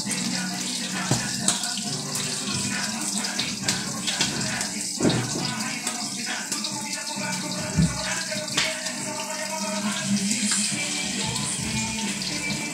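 Steady hissing from a wok on a lit gas burner, with a few short knocks and clatters.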